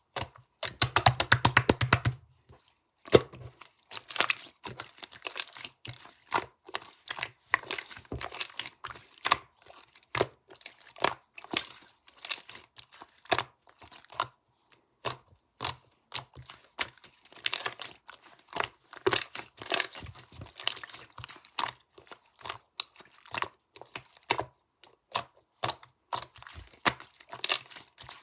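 Hands working a crinkly, crunchy material, giving irregular crackles and crunches. A dense, rapid flurry of crackling comes about half a second to two seconds in and is the loudest part.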